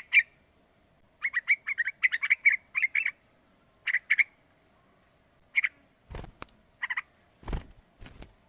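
Young sooty-headed bulbul calling: short clipped notes in quick clusters, then single notes spaced a second or more apart. A few dull low knocks in the last couple of seconds.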